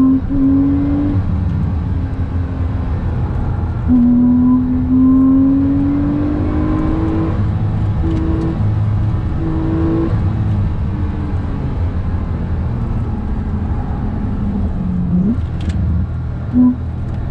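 Porsche 911 Turbo's flat-six engine pulling hard through the gears, with its note rising under full throttle and quick gear changes. Near the end it slows, then a downshift blips it back up, over steady tyre and road rumble inside the cabin.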